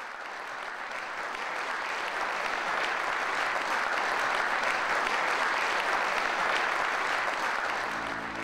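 Audience applauding, the clapping swelling over the first few seconds, holding steady, then easing near the end.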